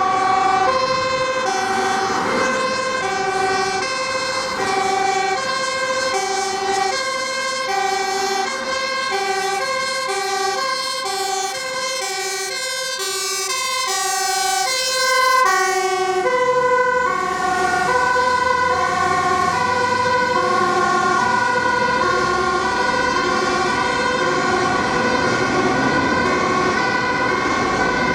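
A Dutch fire engine's two-tone siren sounds a steady high-low alternation, with a vehicle engine underneath. About sixteen seconds in, the siren's pitch drops slightly and the engine rumble comes up.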